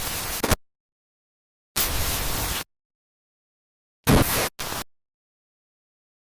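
Bursts of harsh static-like noise, each cut off abruptly with dead silence between: one ends about half a second in, another lasts about a second around two seconds in, and two short ones come close together about four seconds in.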